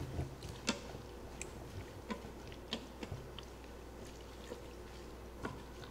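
Wooden spoon stirring chopped collard greens and water in a stainless steel Instant Pot insert, the spoon knocking lightly against the pot a handful of times.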